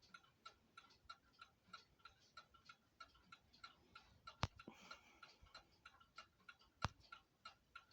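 Kienzle Art Deco mantel clock ticking faintly and steadily, about four ticks a second. Two sharper, louder clicks come about halfway through and again near the end.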